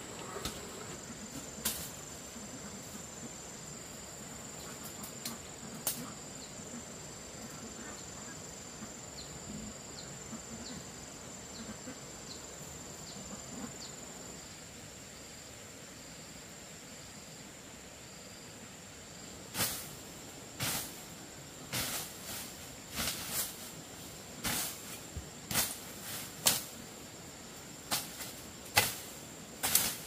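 Insects droning steadily at a high pitch, with rows of short pulsing chirps over it. From about two-thirds of the way in, a series of irregular sharp knocks, roughly one or two a second, are the loudest sounds.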